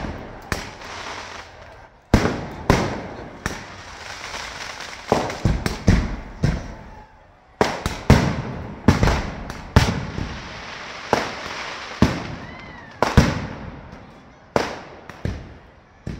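Firecrackers packed into a burning Ravana effigy going off in an uneven string of sharp bangs, sometimes several close together, with crackling between them.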